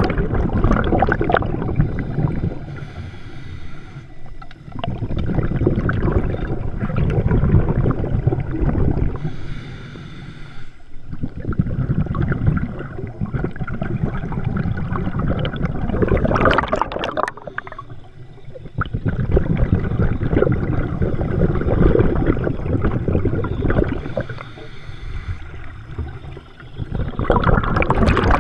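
Scuba diver breathing underwater through a regulator: exhaled bubbles gurgling in loud surges about every seven seconds, each followed by a short lull.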